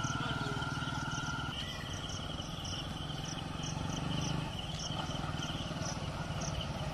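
Hero Splendor Plus's small single-cylinder four-stroke engine running steadily at a distance as the motorcycle rides off down the path and comes back. Short high chirps repeat about three times a second over the engine.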